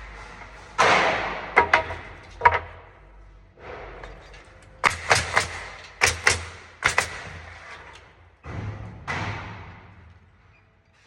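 Hammer blows on a wooden pallet during repair: about a dozen sharp knocks in irregular groups, some with a short ringing tone.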